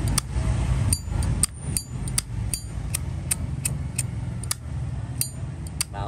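Zippo lighter with a 1948 brass case and a nickel insert with a replaced cam, its lid clicked open and snapped shut over and over: a dozen or so sharp metallic clicks at uneven spacing, some with a brief ring. A steady low traffic rumble runs underneath.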